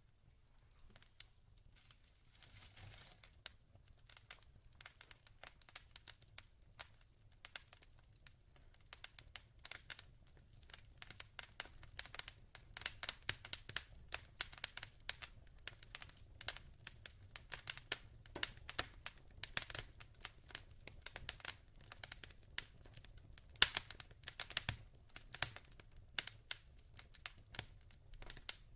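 Wood fire crackling in a fireplace: irregular sharp pops and snaps that grow denser and louder about ten seconds in.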